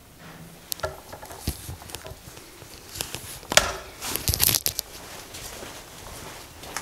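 Footsteps crunching and scraping on a gritty, debris-strewn concrete floor, with scattered clicks and a louder cluster of crunches about three and a half seconds in.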